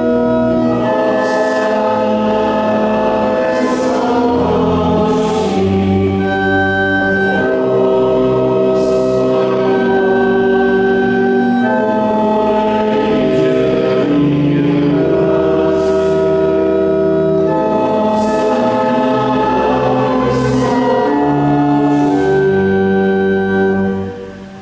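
Hymn sung in church during Mass, voices singing with held chords that change every second or two; the singing ends near the close.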